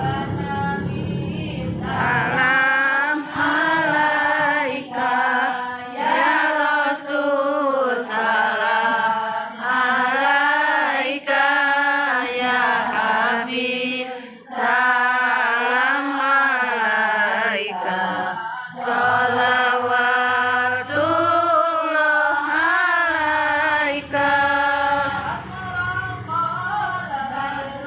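A group of voices chanting an Islamic devotional song together in long, drawn-out, wavering phrases, with a brief breath-pause every two to four seconds.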